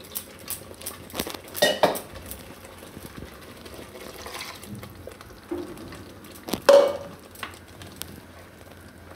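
A steel bowl and spoon clink and scrape against a steel pan as thin spinach purée is poured in and stirred. There are several metallic clanks, the loudest about two seconds in and another about two-thirds of the way through, over a soft wet stirring noise.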